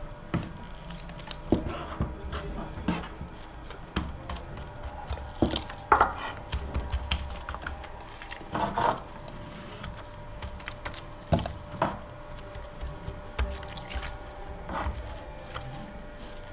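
Resin roller being worked over the timber of a wooden water rill: irregular light knocks and clicks against the wood and the resin tin, with a few short scrapes.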